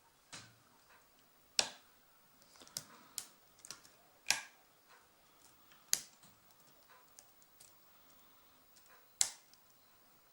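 Small, sharp metal clicks at irregular intervals, about eight in all, from a hook pick and tension wrench working the pins inside a Brinks padlock.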